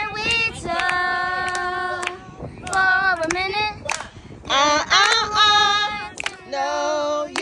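A child singing with no accompaniment, in short phrases with several long held notes, plus a few sharp clicks between phrases.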